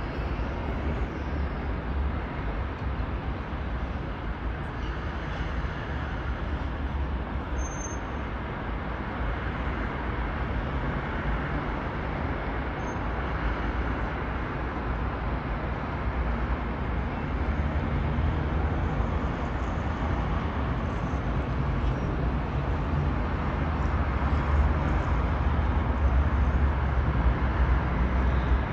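Steady rumble of dense, slow-moving road traffic on a multi-lane highway: car and bus engines and tyres blended into one low, even noise that grows a little louder over the last few seconds.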